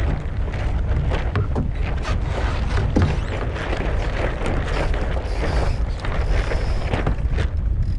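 Wind buffeting a deck-mounted action camera's microphone as a Streaker sailing dinghy sails in a gusty breeze, with water rushing and slapping against its wooden hull.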